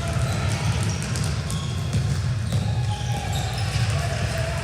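Ball bouncing on a gym floor during a game, over background crowd chatter.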